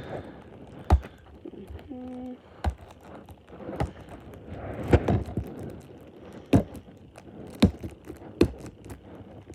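Plastic DVD case being handled after opening: a series of sharp clicks and knocks, roughly one every second or so.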